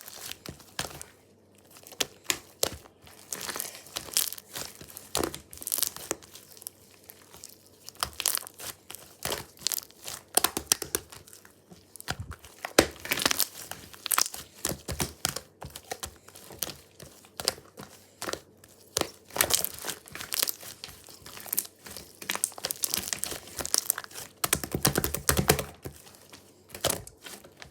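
Paper being handled and folded close up: irregular crinkling and rustling with short tearing sounds.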